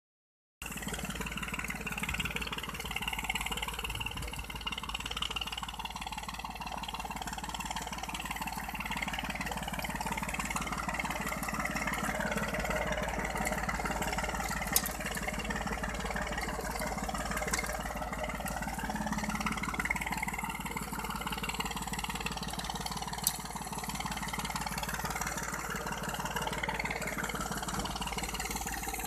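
Tractor engine running steadily under load while it pulls a corn seed planter through tilled soil, with a few sharp clicks over the steady noise.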